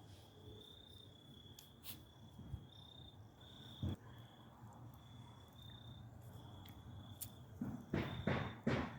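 Faint cricket chirping in repeated high trills over quiet background, with a few sharp clicks. Louder irregular knocks and rustling come in near the end.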